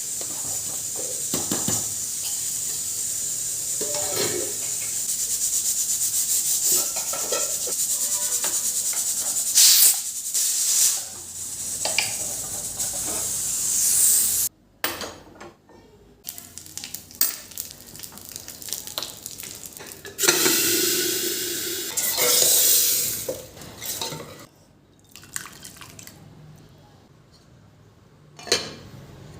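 Kitchen work sounds: a steady hiss for about the first half, then scattered clinks and knocks of utensils and dishes, with a couple of short louder rushes of noise.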